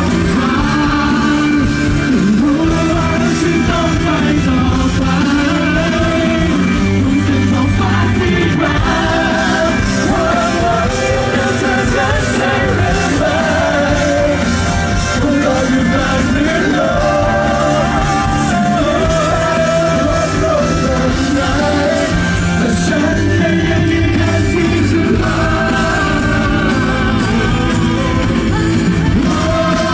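A live band playing a song with singing, drums and keyboard behind the vocals, loud and continuous.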